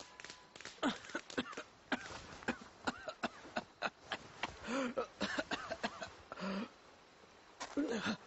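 A cartoon man coughing and groaning in smoke, in several short voiced fits, over a run of sharp crackles and clicks from the smouldering wooden chest.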